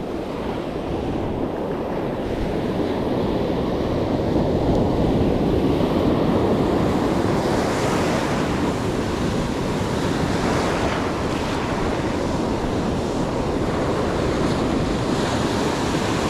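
Ocean surf breaking and washing up the beach, fairly big waves, with wind buffeting the microphone; the surf swells louder a few seconds in.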